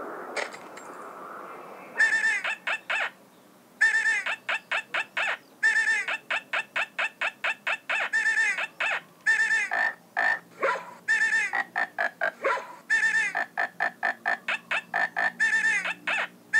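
Background music: a fast, evenly timed run of short, chirping, clucking-like pitched notes in quick clusters, starting about two seconds in.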